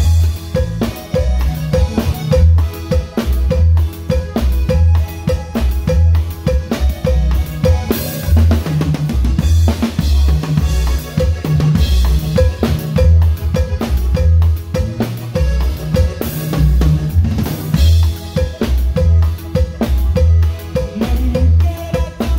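Band music with a drum kit to the fore: bass drum, snare and cymbals keep a steady, driving beat.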